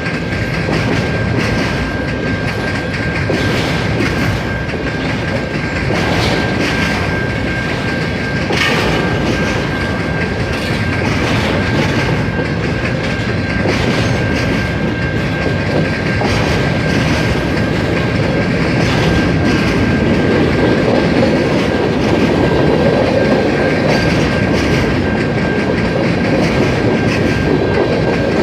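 CN freight train cars rolling past, wheels clicking over rail joints, with a steady high-pitched tone over the rumble. The train gets a little louder in the second half.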